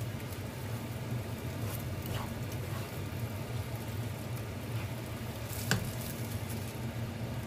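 Sautéed shrimp paste sizzling in an oiled frying pan while a wooden spatula stirs it, with a few light knocks of the spatula on the pan, the sharpest about six seconds in. A steady low hum runs underneath.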